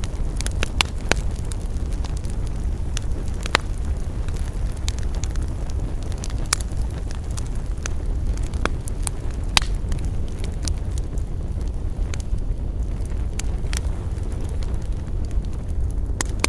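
Wood campfire burning, crackling with scattered sharp pops over a steady low rumble; the loudest pops come about three and a half and nine and a half seconds in.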